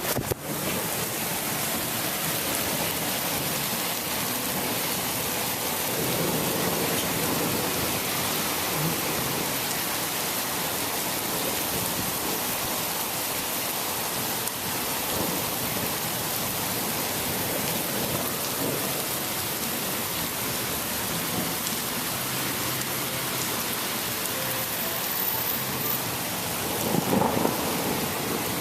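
Rain falling steadily during a thunderstorm, an even, dense hiss, briefly louder near the end.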